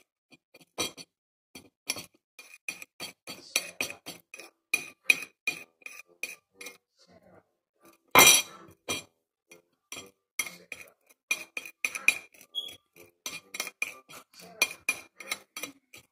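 Metal spoon clinking and scraping against a plate while stirring salt into oil: quick ticks about four a second, with one longer, louder scrape about eight seconds in.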